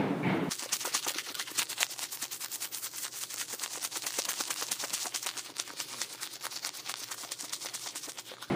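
A dense, irregular crackle of many small clicks and ticks, mostly high-pitched. It cuts in sharply about half a second in and stops abruptly near the end.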